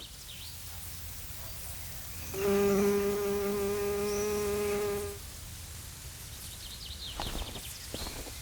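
A flying insect buzzing close by with a steady hum for about three seconds, starting a couple of seconds in and stopping a little after the middle.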